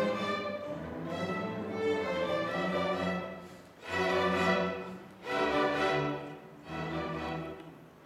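Student string orchestra of violins, violas and cellos bowing a waltz, with held chords at first and then three loud swelling phrases, each fading, in the second half.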